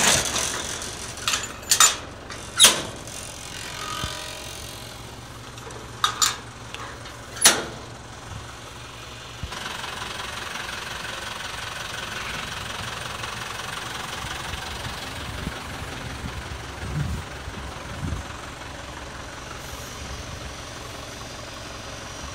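Several sharp metal clanks in the first eight seconds. From about ten seconds in comes a steady mechanical running noise: the flatbed car carrier's engine driving its winch to pull a non-running Chevrolet Tahoe aboard.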